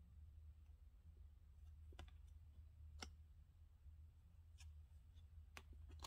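Faint clicks of stiff tarot cardstock as cards are slid one by one off the front of a hand-held deck, about five clicks roughly a second apart, over a low steady hum.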